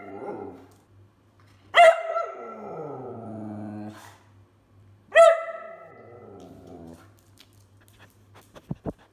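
Whippet barking twice, each sharp bark trailing off into a long, falling whine-grumble: demand vocalising to be taken for a walk. A few soft knocks near the end.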